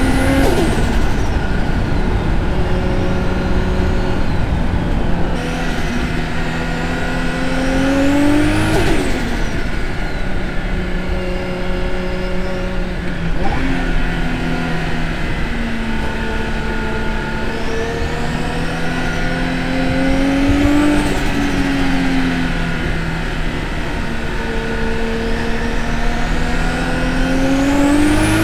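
Nissan RB25DET NEO turbocharged 2.5-litre straight-six pulling hard under load, its pitch climbing steadily three times, each pull cut off abruptly when the throttle closes, before it picks up again.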